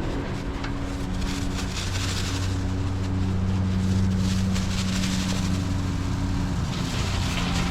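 Electric motor of a fifth-wheel RV's power awning running steadily as the awning extends, a steady hum whose pitch shifts slightly a few times.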